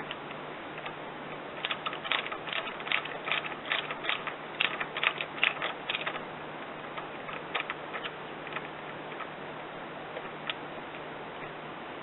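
Hand ratchet wrench clicking in a quick run of strokes, about four or five a second, for a few seconds, then a few scattered clicks, as bolts are run down while the recoil starter assembly is refitted to a lawn mower engine.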